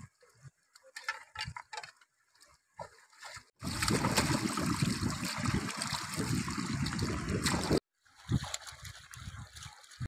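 River water splashing and sloshing as it is scooped up by hand and splashed onto a face. The main run is loud and lasts about four seconds, starting a little over three seconds in and cutting off abruptly. Scattered small splashes come before it.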